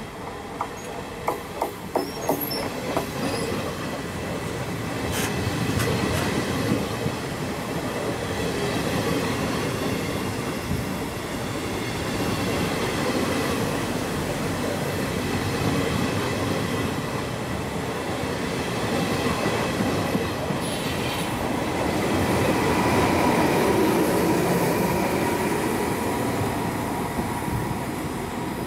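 An electric-hauled regional passenger train rolling past close by. It opens with a quick run of clacks as the wheels cross rail joints, then the coaches go by with a steady rolling rumble that swells and eases.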